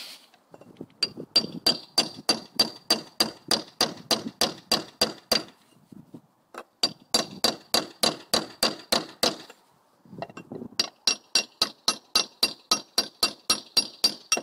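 A hammer rapidly striking a steel chisel, driving rolled lead wedges into a brick mortar chase to fix lead flashing. The blows come in three runs of about four or five strikes a second, each with a metallic ring, broken by two short pauses.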